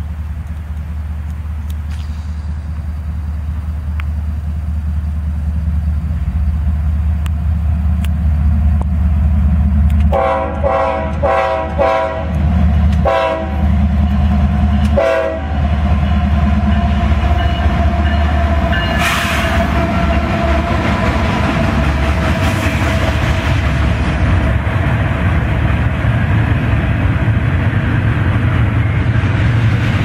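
Florida East Coast Railway diesel freight train approaching, its low engine rumble growing louder, then, about ten seconds in, the locomotive air horn sounds a string of short blasts over several seconds. The locomotives pass and the double-stack container cars follow with steady rolling wheel noise and some clatter.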